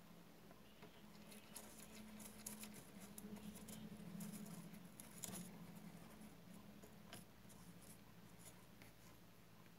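Faint scratching and light clicks of a paintbrush worked in the pans of a watercolour paint set, between about one and seven seconds in, over a low steady hum.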